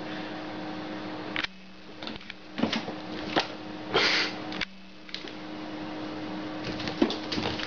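Steady electrical hum in a small room, with scattered light knocks and rustles from cats moving in and around a fabric cat house. A short hissing noise comes about four seconds in.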